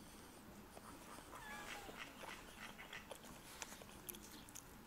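A dog whining softly: a couple of short, gliding whines about one and a half seconds in, over faint scattered clicks and taps.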